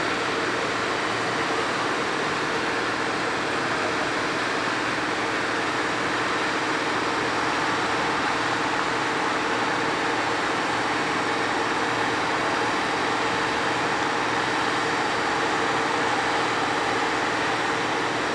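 Freight train wagons rolling past: a steady noise of wheels on rail with no change in level.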